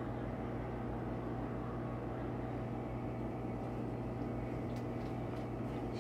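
A steady mechanical hum: a low drone with a hiss over it, even throughout, with a few faint clicks near the end.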